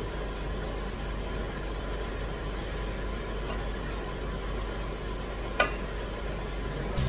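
Steady whirring noise with a low hum from a kitchen while a vegetable stew cooks on a gas hob. A single sharp clink of a cooking utensil against the pan comes about five and a half seconds in.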